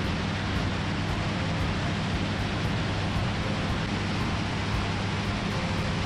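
Steady wind rush over the camera microphone in flight, with the low, even drone of the American Ranger AR-1 gyroplane's engine and pusher propeller underneath.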